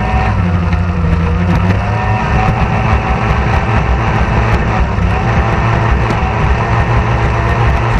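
Two-stroke stock outboard racing engine on a hydroplane, running steadily at low speed, heard from onboard, with other race boats' outboards wavering in pitch behind it.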